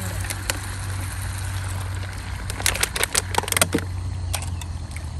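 Steady low rumble under a few sharp clicks. Just past halfway comes a quick run of clicks and rattles as hands handle a utensil and food packets beside a steel cooking pot.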